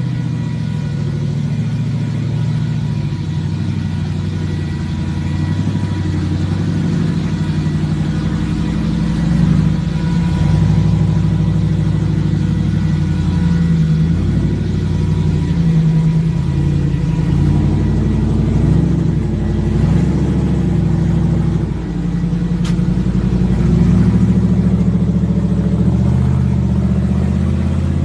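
Off-road 4x4 vehicle's engine running continuously, its pitch rising and falling as it revs and eases off.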